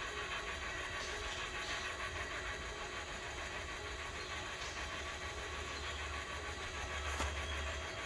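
Electric power tongue jack's motor running steadily as the jack drives, a continuous mechanical hum with a faint whine, and a brief click about seven seconds in.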